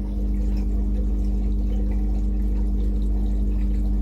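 Drain pump of a Koenic KWM 8212 A INV top-loading washing machine running, pumping out the wash water with a steady hum.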